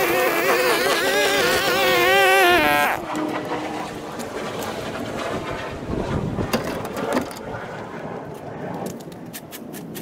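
Gas string trimmer running at high speed, its pitch wavering as it cuts the old grass down to bare soil, then shut off about three seconds in. After that come scattered scrapes and clicks, with a rake dragged over the loose soil near the end.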